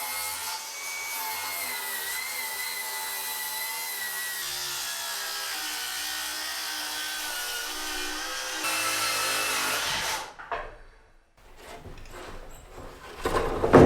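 Power saw ripping a 2x4 lengthwise: a steady motor whine over the noise of the blade cutting wood. It gets louder about nine seconds in and stops suddenly about ten seconds in as the cut ends.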